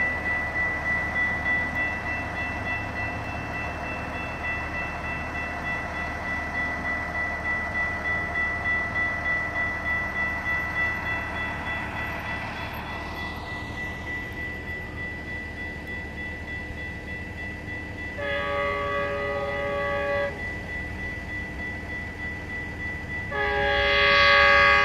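Railroad grade-crossing warning bell ringing steadily, about two strikes a second. A Metrolink commuter train's horn sounds two long blasts for the crossing, the first about three-quarters of the way in and a louder second one near the end.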